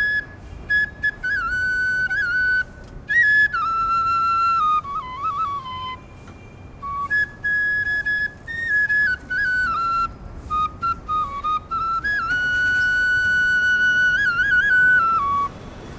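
Background music: a solo flute melody of long held notes decorated with quick turns and slides, breaking off briefly about six seconds in.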